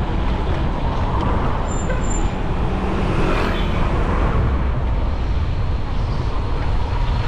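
Steady rush of wind on the microphone and road traffic noise from passing cars while cycling in city traffic, with a vehicle swelling past about three seconds in. Two brief high chirps come just before it.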